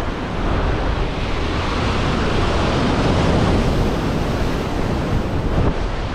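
Shore-break surf washing in, a steady roar of breaking water that swells about halfway through, with wind buffeting the microphone.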